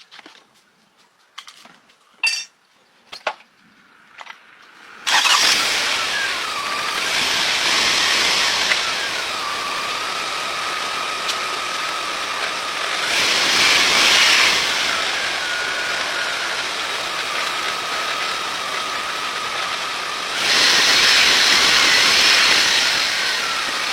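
A motor vehicle engine starts suddenly about five seconds in and keeps running with a whine, growing louder twice for a second or two.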